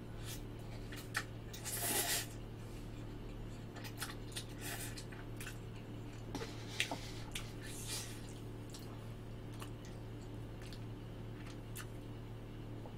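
Close-miked eating sounds: a person slurping and chewing instant spaghetti noodles, with scattered wet mouth clicks and the loudest slurp about two seconds in. A steady low hum runs underneath.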